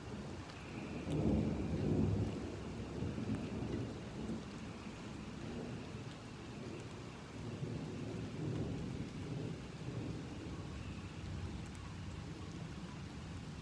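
Thunder rumbling under a steady, gentle rain: a louder rolling rumble about a second in, then a second, softer rumble in the latter half.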